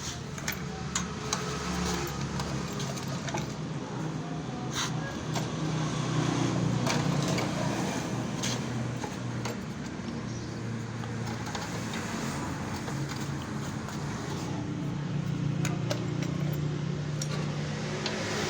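A small engine running, its pitch shifting every few seconds, with scattered metallic clicks and clinks.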